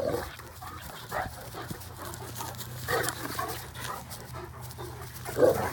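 Dogs panting as they play, with a few short scuffling sounds about a second and three seconds in and a brief louder sound just before the end.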